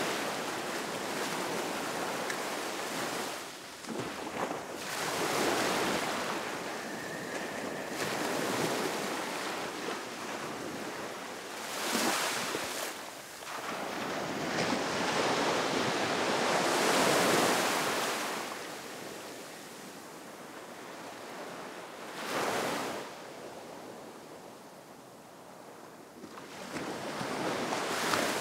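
Ocean waves washing in, the rush of water swelling and fading every few seconds.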